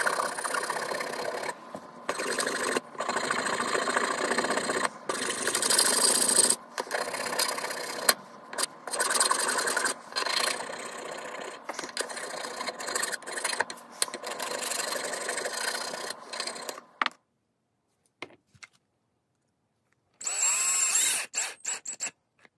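A flat hand file rasping back and forth over a wooden lure clamped in a bench vise, in repeated strokes with short pauses, smoothing down a built-up super glue and baking soda patch. The filing stops, and near the end a power drill runs in short bursts, driving a screw eye into the lure.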